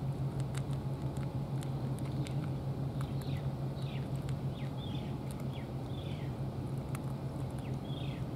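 A steady low hum runs throughout. From about three seconds in, a bird gives quick, descending chirps several times, and scattered faint clicks fit a cat chewing its food close by.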